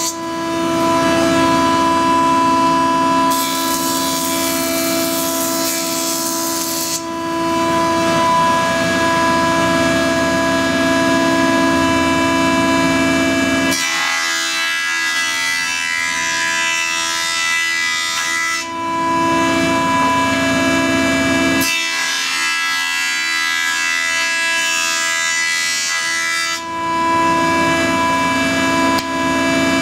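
SCM F410 surface planer running with a loud, steady whine from its spinning cutterhead while boards are pushed across it and planed. The cutting sound shifts abruptly several times as passes begin and end.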